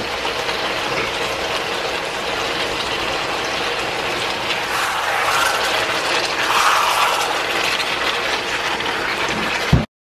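Beef and bell peppers sizzling in a hot wok as they are stirred, with crackling and the spatula scraping the metal. A knock comes just before the sound cuts off suddenly near the end.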